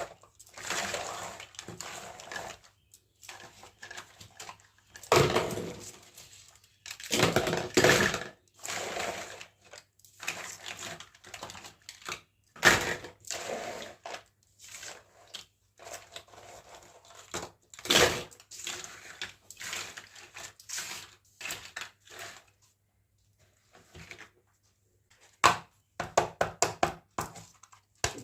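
Small plastic toy kitchen pieces and their packaging being handled: irregular clicks, taps and rustling, with a few sharper knocks and a quick run of clicks near the end.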